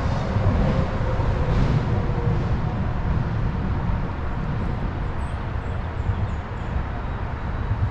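Steady rushing, rumbling outdoor noise, heaviest in the low end, with no separate events standing out.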